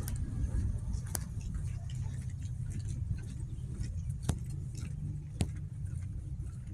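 Outdoor ambience: a low steady rumble, with four sharp clicks at irregular moments.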